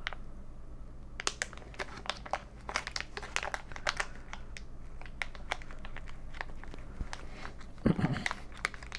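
Plastic wrapper crinkling as it is handled, in many short, irregular crackles that begin about a second in.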